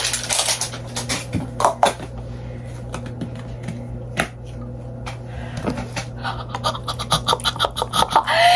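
Small plastic spray bottles and caps being handled: scattered clicks, taps and scratches of plastic over a steady low hum. Just before the end a girl's excited scream begins.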